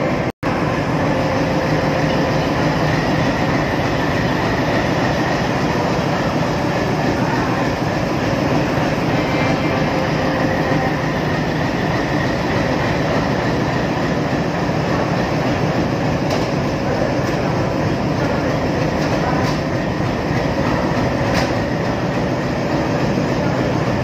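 Diesel locomotive engine running steadily, a continuous mechanical drone with a few steady tones in it. The sound cuts out for a split second just under half a second in.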